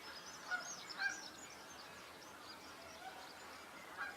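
Waterfowl calling: two short honk-like calls about half a second and a second in and a weaker one near the end, faint, over light high twittering of small birds.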